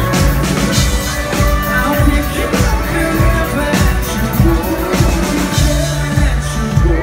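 A live band playing a country-pop song with a steady drum kit beat, and a male voice singing over it.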